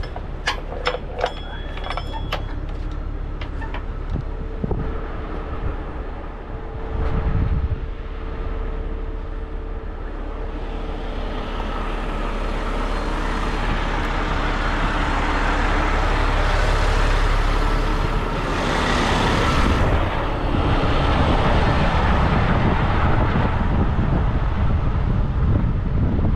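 Heavy diesel tow truck idling with a steady low rumble. In the first couple of seconds there are a few sharp metallic clinks of chain and hooks being handled. From about ten seconds in, wind noise on the microphone rises over the engine.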